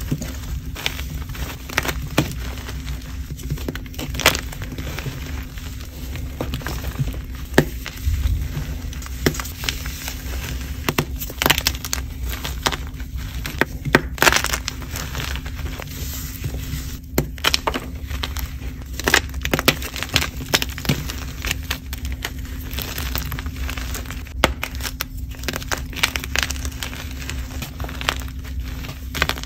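Soft pearly gym chalk blocks, mixed with blue and green sand and cornstarch, crushed and crumbled in bare hands: crisp, irregular cracks and crunches with powdery crumbling between them. A steady low hum runs underneath.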